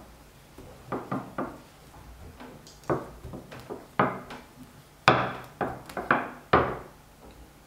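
Wooden rolling pin rolling out bread dough on a wooden board, knocking on the board in a string of irregular wooden knocks, the loudest few about five to six and a half seconds in.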